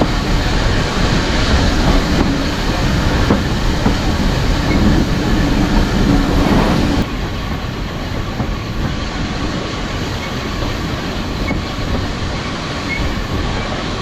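Heritage steam railway train running along the line, a steady rumble and clatter of wheels on track. About halfway through the sound drops suddenly to a quieter, smoother run.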